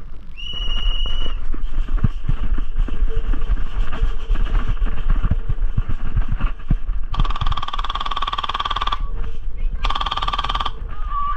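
Electric airsoft gun firing two bursts on full auto, a fast buzzing rattle, about seven seconds in and again about ten seconds in. Before them, a short high beep about half a second in, then running footfalls and wind rumble on the microphone.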